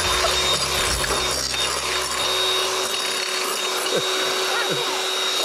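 Electric hand mixer running steadily at speed, its beaters whipping egg whites in a bowl, with a steady motor whine.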